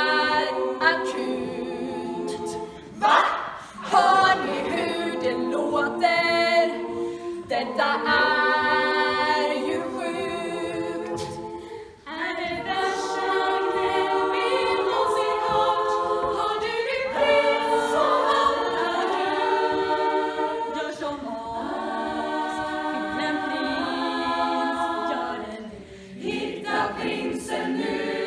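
Women's choir singing a cappella in Swedish, several voices in harmony, with a brief break near the middle.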